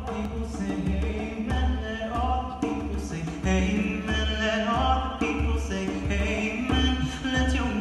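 Choral singing of a gospel song, with a steady low drum beat underneath.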